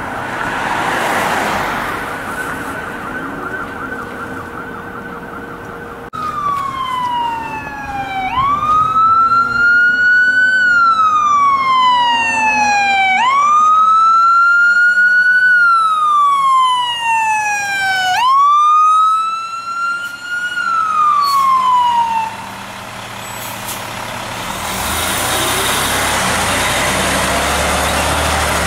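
Fire engine siren: a fast yelp for the first few seconds, then a wail rising and falling in three slow cycles of about five seconds each. Near the end the siren stops and the pumper's diesel engine and tyres rumble past close by.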